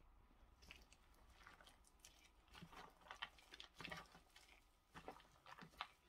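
Faint, irregular squishing and crinkling of a disposable plastic glove as a hand kneads egg yolk into sticky cooked rice, busier in the second half.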